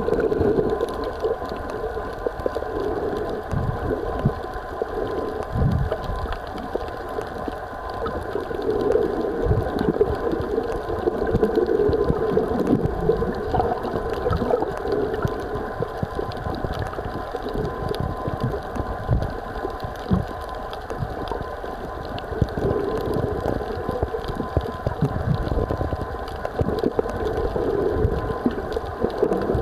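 Muffled underwater sound picked up by a waterproof compact camera's built-in microphone: a steady low rumble with a faint even hum and irregular dull thumps from water moving against the camera.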